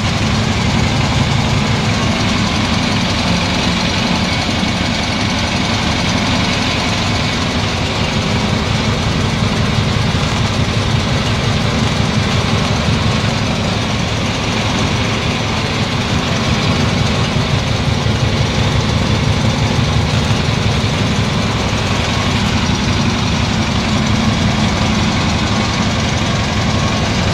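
Fishing boat's engine running steadily under way, heard from inside the cabin, with a fast even low throb and a constant rushing noise over it.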